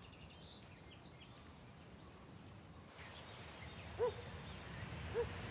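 Quiet outdoor ambience with faint high bird chirps in the first second. After a change in the background, a short low call sounds twice, about a second apart.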